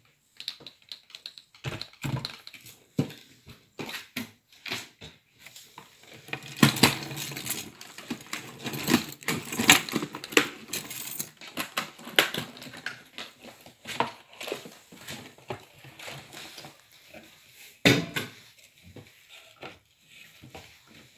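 Irregular clicks, knocks and rustling from a plastic makeup case being opened and its trays and protective film handled, with a sharp knock about eighteen seconds in.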